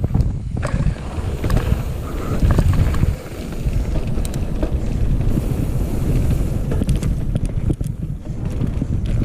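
Wind buffeting the microphone and tyres rumbling over a dirt trail as a mountain bike descends at speed, with frequent sharp clicks and rattles from the bike over rough ground.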